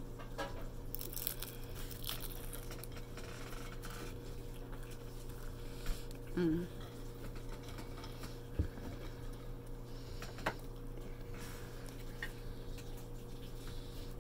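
Biting into and chewing a crispy fried lumpia (spring roll): crackly crunches of the fried wrapper and wet mouth sounds, thickest in the first few seconds, with a short voiced 'mm' about six and a half seconds in and a couple of sharp clicks later.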